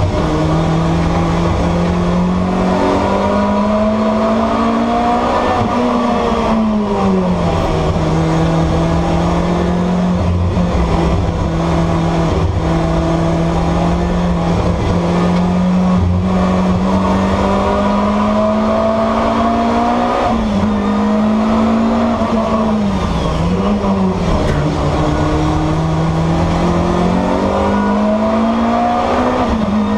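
BMW M3 E30's S14 four-cylinder racing engine running hard and loud without a break, its pitch climbing slowly through long pulls and dropping sharply and recovering several times, near six, twenty, twenty-three and twenty-nine seconds in.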